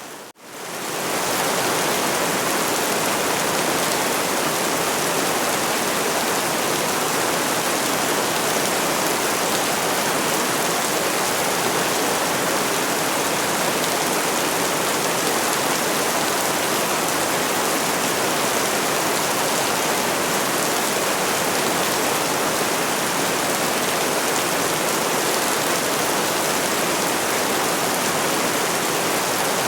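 Steady, dense rain noise. Just after the start it drops out briefly and fades back in, like a seam where the recording loops, then runs on evenly.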